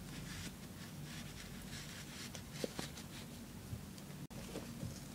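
Quiet room tone: a steady low hum and faint hiss, with a few soft clicks and light rustles, the loudest a couple of small clicks about two and a half seconds in.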